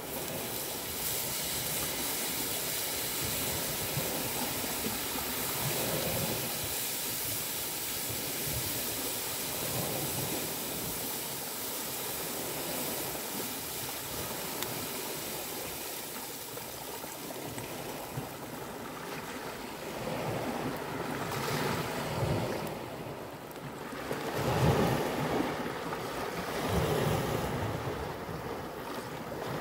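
Waves washing on a rocky shore, with liquid poured in a steady stream from a leather bottle into a cooking pot over the first half. Several louder surges come near the end.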